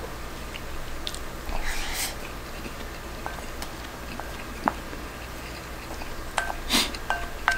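A wooden spoon scooping rice from a hard bowl, with short clicks against the bowl that ring briefly, more of them near the end, and chewing in between.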